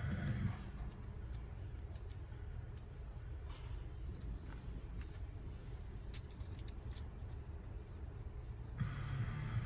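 Crickets chirring in a steady, high, unbroken trill over a low background rumble, with a few faint clicks. The rumble and a brighter hiss swell near the start and again near the end.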